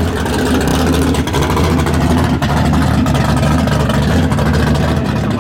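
Muscle car V8 engine running steadily with a loud, deep exhaust note, held at a fairly constant speed.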